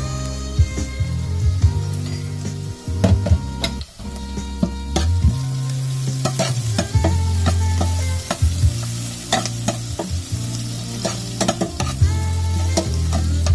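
Sliced onions, chillies and spices sizzling in oil in a stainless steel pot while a utensil stirs them, with repeated sharp clicks and scrapes of the utensil against the pot.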